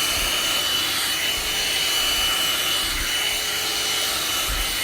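One-step hot-air brush (hair dryer and brush in one) running steadily while being worked through hair, a rush of air with a steady high whine on top.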